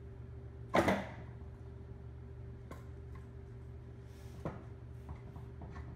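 Valve body of a 45RFE automatic transmission being worked loose and lifted from the case: one sharp metal knock just under a second in, another about halfway through, and a few light clicks near the end, over a steady low hum.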